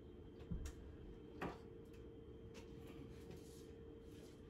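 Quiet kitchen room tone with a faint steady hum, and two soft clicks about half a second and a second and a half in as things are handled in an overhead cabinet.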